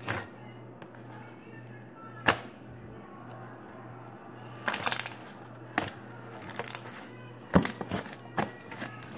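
Slime being handled and stretched, giving a series of sharp clicks and pops at irregular intervals over a steady low hum.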